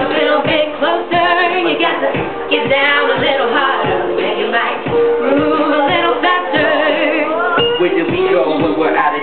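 Hip hop backing beat with a steady drum pulse, about two beats a second, and a sung vocal melody over it.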